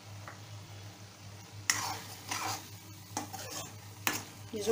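A spatula stirring and scraping thick pea-and-tomato gravy around a metal kadai, in about half a dozen quick scraping strokes that begin about a second and a half in.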